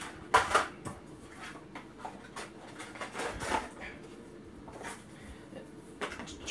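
Handling of action-figure packaging: a clear plastic tray crinkles in a short loud burst about half a second in, followed by quieter rustles and crinkles of plastic and cardboard, another cluster around three seconds in.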